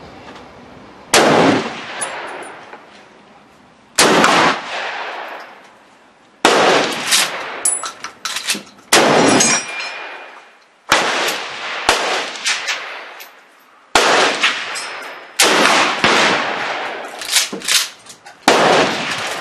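Pump-action shotgun, a Maverick 88, fired repeatedly: about eight loud shots spaced a couple of seconds apart, each followed by an echoing decay, with smaller clicks in between.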